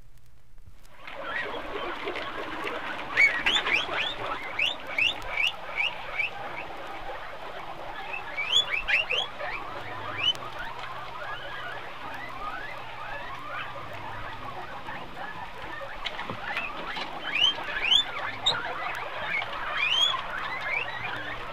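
A group of guinea pigs squealing and chattering, many short rising squeaks over a busy background of softer squeaks, starting about a second in after a brief gap and coming in louder flurries.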